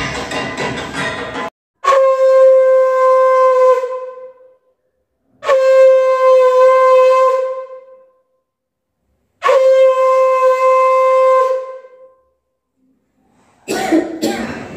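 Conch shell (shankha) blown three times, each a long steady note lasting about two and a half seconds with a short pause between. Background music plays for about the first second and a half before the first blast.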